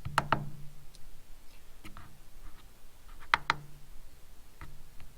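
Push-button switches on an Auxbeam switch panel clicking as they are pressed and released, several times, mostly in quick pairs. A faint low hum comes on alongside some of the presses.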